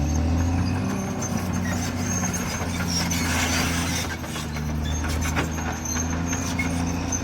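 Caterpillar D6R bulldozer's diesel engine running steadily under work, with a stretch of higher crackling and clicking noise around the middle.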